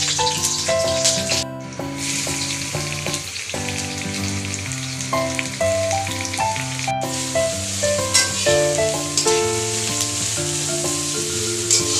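Onion and potato sizzling steadily as they fry in hot oil in a pan, over background music, with the sound cutting out for an instant twice.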